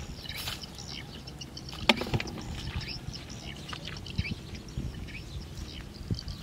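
Small birds chirping in short scattered calls over a low outdoor rumble, with one sharp click about two seconds in.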